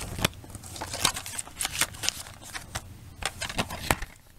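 A paper booklet being handled by hand: a run of irregular clicks, taps and rustles.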